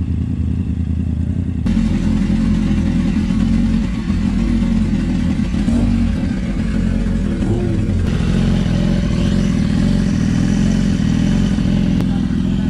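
Motorcycle engine running steadily under way, with road noise. The sound steps up and grows fuller about two seconds in.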